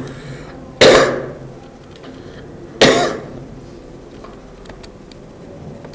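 A person coughing twice, about two seconds apart, with a few faint clicks near the end.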